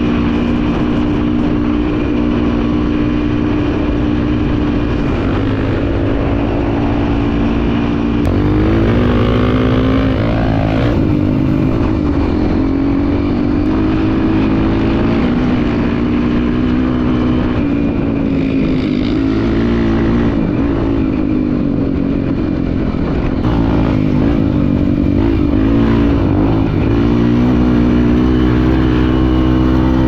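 Single-cylinder four-stroke trail motorcycle engine running while riding, mostly steady, its pitch rising and falling about eight to eleven seconds in and several more times later as the throttle changes.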